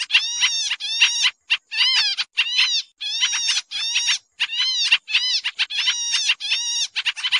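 Pied triller (kapasan kemiri) calls from a lure-call recording: a busy, unbroken run of harsh, scratchy chattering notes, about two a second with only brief gaps.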